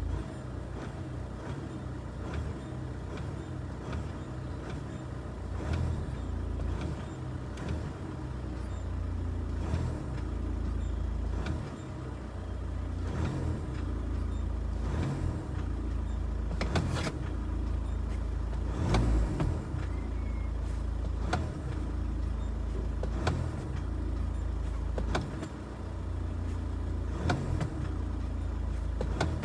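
VW Caddy engine running with a steady low rumble, repeatedly revved a little and let fall back to idle. A short sharp noise comes roughly every two seconds as the revs return to idle: the fault noise in question.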